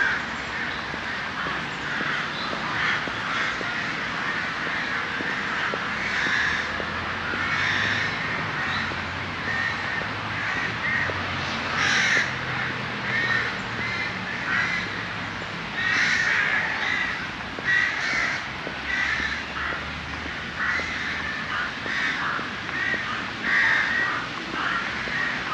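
Birds calling over and over, short calls coming every second or so and sometimes overlapping.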